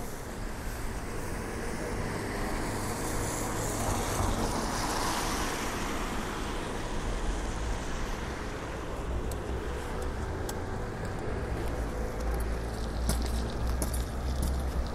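City street traffic at a wet crossing: a car passes about four seconds in over steady road noise. Near the end there is a low rumble and a few light clicks.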